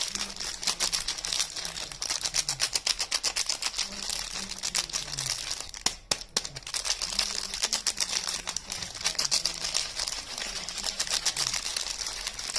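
Soap packaging being handled and unwrapped, with rapid crinkling and crackling. There is a brief pause about six seconds in.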